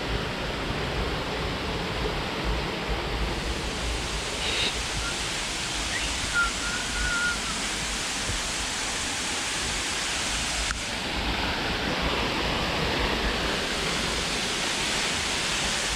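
Steady rushing of a waterfall close by, an even wash of falling water that gets a little louder after about eleven seconds.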